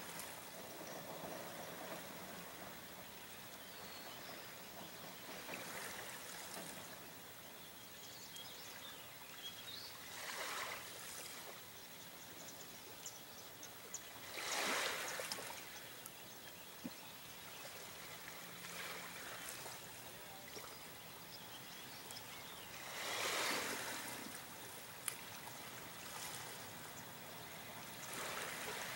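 Gentle lapping of shallow lake water against the shore and reed stems. It is a faint steady wash that swells a few times into a louder slosh lasting a second or two, loudest about halfway through and again near the end, with one sharp click shortly after.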